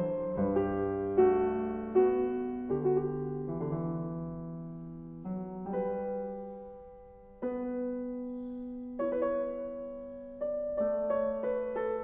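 Background music: slow solo piano, chords struck one after another and left to ring out, one fading almost away before a new chord about seven seconds in.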